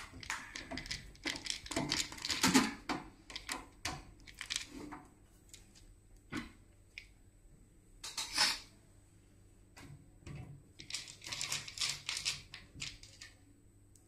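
Irregular metallic clicks and clatter as a computer power supply (SMPS) is seated in a steel PC case and fastened with a screwdriver and screws.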